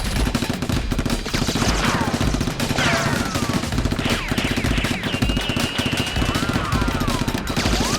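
Rapid, sustained automatic gunfire, most likely added gun sound effects over the Nerf battle, with several whistling sweeps in pitch laid over it.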